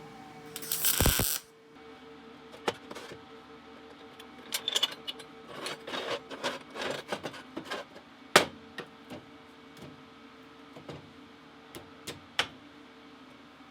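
A MIG welder (Lincoln Electric 210 MP) laying a short tack weld: a loud crackle lasting about a second, starting about half a second in. It is followed by scattered light clicks and knocks of metal parts being handled, over a faint steady hum.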